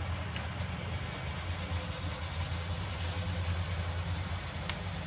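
A steady low mechanical hum, like an engine or motor running, with a steady high hiss above it. Two faint light clicks, one just after the start and one near the end.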